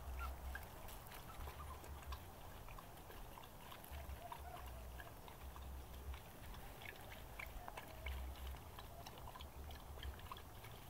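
Quiet scuffling and scattered light ticks as West Siberian Laika puppies and an adult dog move about on bare dirt, with a few brief faint puppy squeaks and a low rumble that comes and goes.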